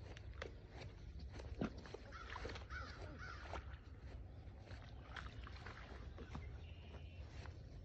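Dry dead reed stems crackling and snapping as a net on a pole is worked through them at the pond's edge, with a few harsh caw-like calls about two to three seconds in.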